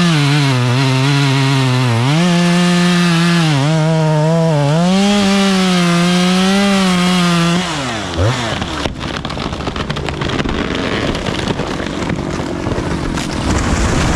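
Two-stroke chainsaw running at high revs in a cut, its pitch dipping and recovering as it bogs under load. About eight seconds in the revs fall away and the engine goes quiet. A noisy stretch of irregular cracking and snapping follows.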